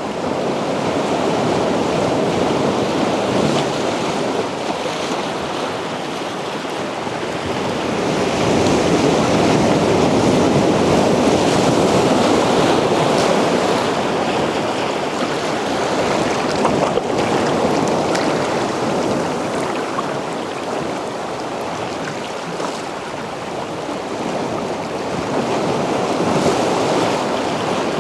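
Sea waves breaking and washing up a beach, a continuous rush of surf that swells and ebbs as successive waves come in.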